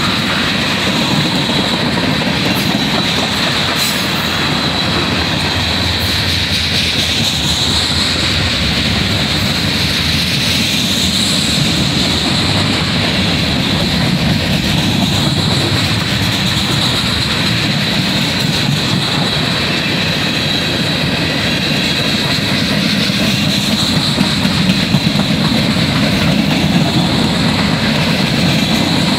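Freight train of tank cars and covered hopper cars rolling past close by: a steady, loud rumble of wheels on rail with a thin high steady tone riding above it, and a few clanks near the end.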